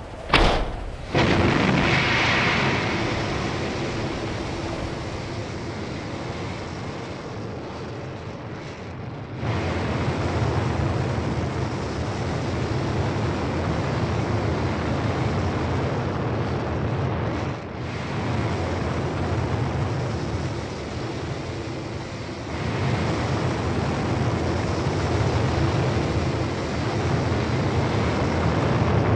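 Sound effect of the Curiosity descent stage's rocket engines firing: a sharp bang in the first second, then a steady rushing rocket noise that grows louder about nine seconds in and again about twenty-two seconds in.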